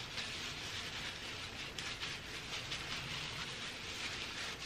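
Hands rubbing hair dye through wet, saturated hair: a steady soft, wet hiss with faint irregular rustles.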